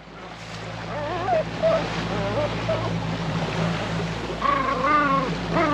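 Boat motor running steadily at trolling speed with a low hum, and wavering whine-like calls over it, the loudest about five seconds in.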